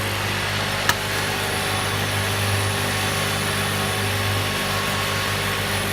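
Steady mechanical hum of a dropper-bottle filling and capping machine standing powered, with a single sharp click about a second in.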